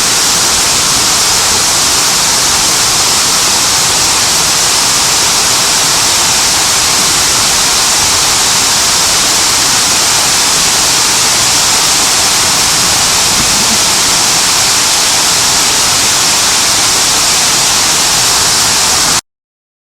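Water pouring down the Hines Water Wall, a 64-foot crescent-shaped fountain carrying 11,000 gallons a minute, making a loud, steady, hissing rush. It cuts off suddenly near the end.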